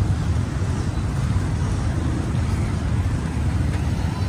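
Steady city traffic noise with a constant low rumble, from motorbikes, tuk-tuks and cars on the road.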